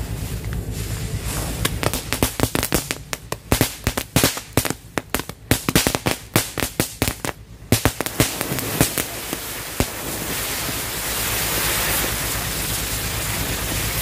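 Colour-wheel firecracker (mercon roda warna) going off: a rapid, irregular string of sharp cracks for about six seconds, then a steady hiss for the rest of its burn.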